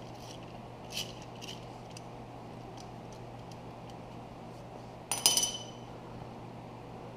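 Hand tools clicking lightly on metal, then a sharper metal clink with a brief ring about five seconds in, as a ratchet turns a 3/8-16 bottoming tap to chase the threads of an exhaust-manifold bolt hole in a 351 Windsor cylinder head. A steady low hum runs underneath.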